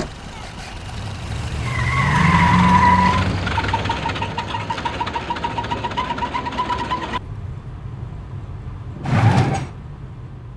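A car engine running and revving up, its pitch rising about two seconds in, with a rapidly pulsing high tone over it that cuts off suddenly about seven seconds in. A short whoosh of a vehicle going by about nine seconds in.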